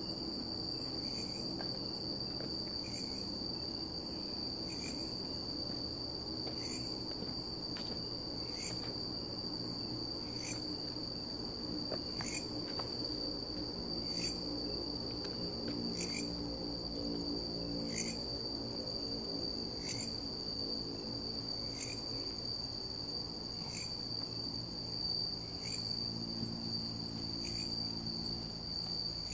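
Night insects, crickets, trilling continuously in one steady high tone, with another insect's short chirp repeating every second or two.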